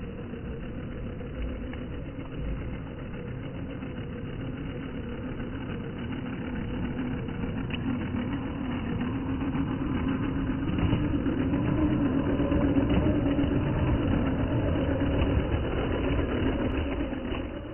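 Electric motor and gearbox of an MN86KS radio-controlled crawler truck whining as it drives over wet gravel. The whine grows louder as the truck approaches and drops away suddenly near the end as it passes.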